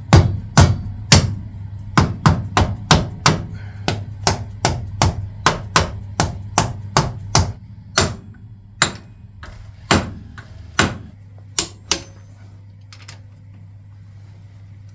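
Sharp hammer taps on metal at the Dana 30 differential, seating the shimmed E locker carrier in the axle housing. About three taps a second for the first several seconds, then fewer and further apart, stopping about twelve seconds in.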